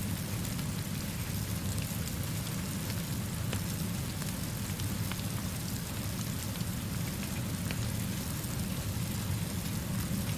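Steady rainfall mixed with a gentle fire, over a low, even rumble, with faint scattered ticks.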